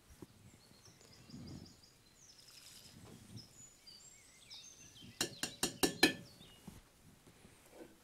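About five quick knocks against a cast-iron pot a little past halfway, as flour is tapped from a wooden scoop into it. Faint bird chirps in the first half.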